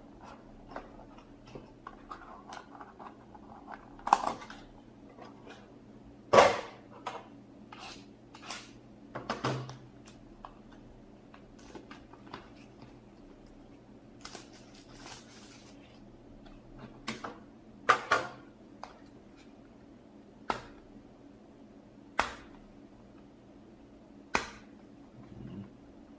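Hands handling trading cards and their packaging, with a scattered series of sharp clicks and taps and light rustling between them.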